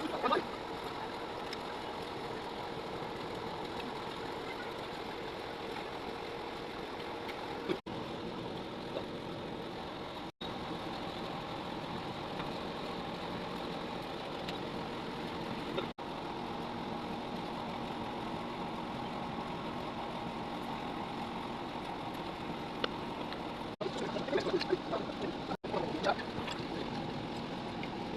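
A small engine running steadily at an even speed, cut off for an instant several times, with a few light clatters near the end.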